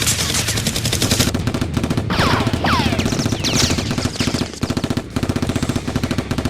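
Automatic gunfire sound effects: rapid, continuous machine-gun bursts, with a few short falling whines from about two to four seconds in.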